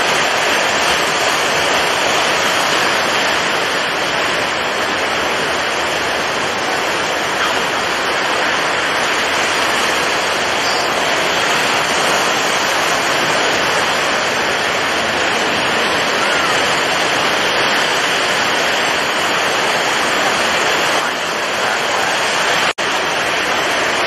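Stormy sea: wind-driven waves and surf making a dense, steady rush of noise. It cuts out for a split second near the end.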